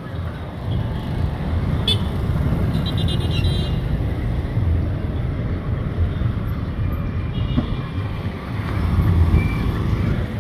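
Street traffic on a busy main road: motorcycle taxis, minibus taxis and cars passing, with a steady low rumble of engines and tyres. A sharp click comes about two seconds in, and short high pulsing sounds follow a moment later and again after about seven seconds.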